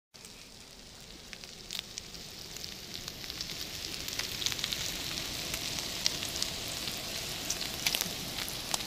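Bacon strips frying on a griddle: a hiss of sizzling fat dotted with sharp pops and crackles, getting louder over the first few seconds.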